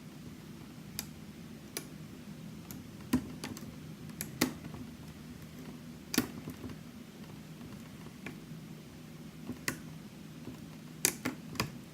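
Sharp, isolated clicks of a lock pick and tension wrench working the pins of a challenge lock, about a dozen at uneven intervals with a quick cluster of three near the end, over a steady low hum.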